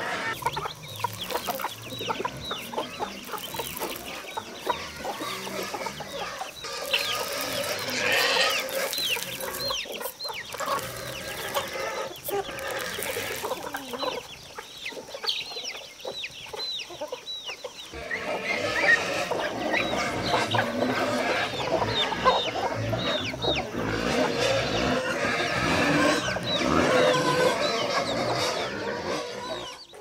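A flock of free-range chickens clucking while they forage, with many short, high, falling chirps among the clucks.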